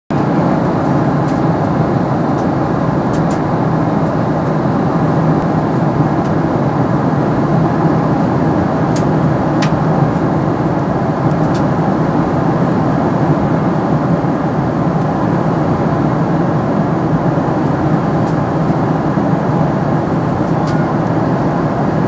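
Steady rushing cabin noise of a Boeing 777 airliner in cruise, the mix of airflow and engine noise heard inside the cabin, with a few faint ticks.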